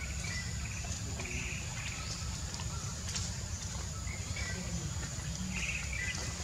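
Outdoor woodland ambience: birds chirping and trilling now and then over a steady high-pitched insect drone, with a constant low rumble underneath.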